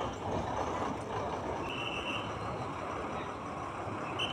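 Bus stand traffic noise: a steady din of idling and passing buses, with one short high-pitched beep a little before halfway.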